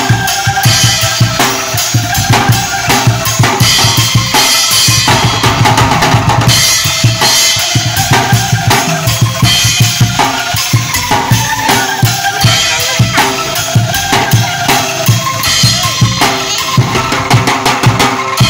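Street angklung band playing: a rack of bamboo angklung sounding pitched tones over a marching snare drum, a plastic-barrel bass drum and a cymbal keeping a steady, dense beat.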